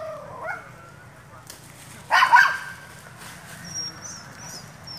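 Long-tailed macaque giving a short, harsh screech about two seconds in, with a smaller falling call just after the start.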